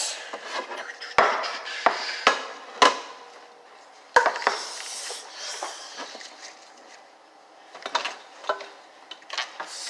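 Toy cooking utensils and dishes being handled, with scattered sharp clinks and knocks: the loudest about a second in, twice between two and three seconds, and about four seconds in, then a few more near the end, with quieter rattling between.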